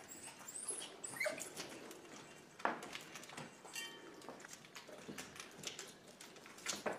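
A small dog scrambling up and over a plastic mesh playpen, its claws clicking and the plastic panels rattling in irregular bursts, with a few short high squeaks.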